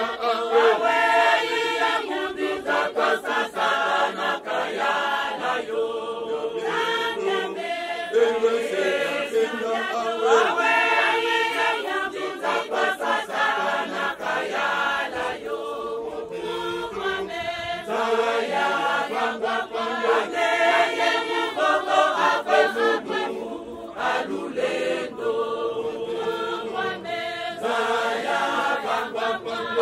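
Large church choir of men and women singing a song together in phrases of a few seconds, with short breaks between phrases.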